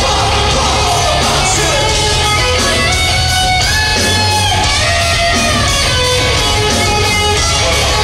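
Live rock band playing loud, with electric guitar to the fore; several long guitar notes bend up and down in pitch around the middle.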